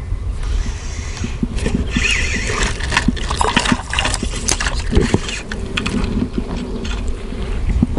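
A hooked fish thrashing and splashing at the water's surface beside an inflatable boat as it is played in, a quick run of irregular splashes at their loudest in the middle. A steady low rumble of wind on the microphone lies underneath.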